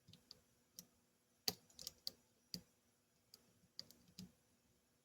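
Small, irregular clicks and ticks of a dimple-lock pick working the pins inside a Yale Superior dimple lock under tension, about ten in all, with the sharpest about a second and a half in.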